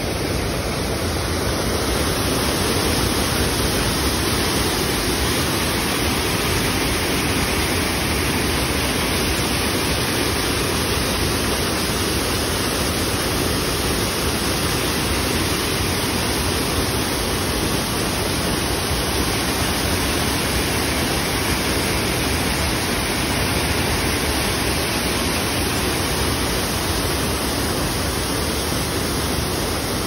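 Stream water pouring over a low concrete weir and rushing down a concrete channel: a loud, steady rush of water, the stream running full after rain.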